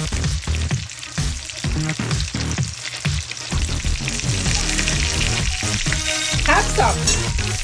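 Cornflake-crumbed catfish frying in hot oil: a steady sizzle, with music playing underneath.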